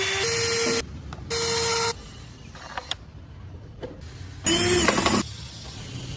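A small power tool run in three short bursts, each under a second, its pitch rising as it spins up and then holding steady, with quieter clicks in between.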